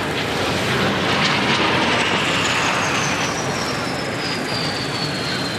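Kawasaki T-4 jet trainer's twin turbofan engines, a broad jet rush as it touches down and rolls out on the runway. A high whine falls steadily in pitch from about two seconds in.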